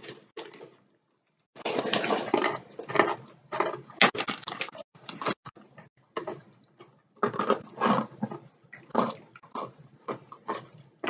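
Irregular crinkling and crunching from party mix snacks being handled and eaten, in two long stretches with a pause between them.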